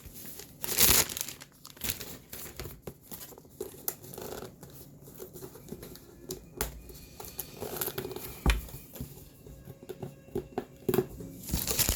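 Cardboard box and packaging being handled and torn open, with irregular crinkling, tearing and rustling, loudest about a second in and again near the end.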